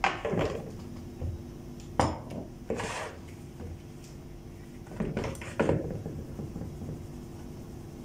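Stainless steel sieve, plastic mixing bowls and a glass cup clattering as they are handled and knocked against a plastic basin: five sharp knocks with a short ring, two pairs about half a second apart.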